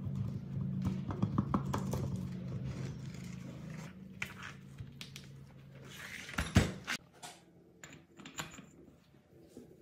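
Metal parts of an old generator being handled on a workbench: scraping and light clinks as the rusty stator is pulled from its housing, over a low steady hum for the first few seconds. A single sharp knock comes about six and a half seconds in, then a few faint clicks as a socket wrench is set on the cylinder head bolts.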